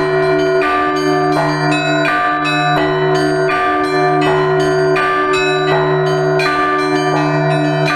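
Russian Orthodox church bells rung together in a continuous peal (zvon). Smaller bells are struck several times a second over a deep low bell that keeps sounding underneath.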